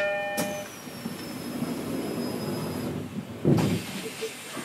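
Sounds of a stationary electric train at a station platform: a two-tone chime dies away, a faint high whine falls slightly in pitch, and a loud thump comes about three and a half seconds in.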